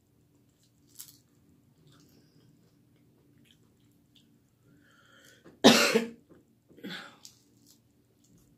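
A woman coughing hard once about six seconds in, then a weaker cough about a second later, between faint sounds of eating chicken wings. She says she is sick.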